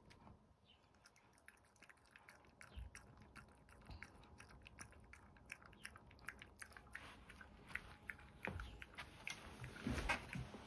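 A chihuahua licking and lapping soft yogurt from a ceramic bowl: faint, quick wet smacks of tongue and mouth, with a couple of louder knocks near the end.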